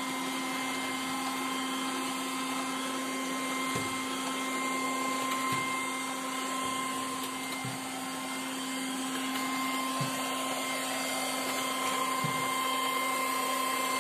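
Milagrow Seagull robot vacuum cleaner running: a steady whirr with a high whine, and a faint low knock about every two seconds.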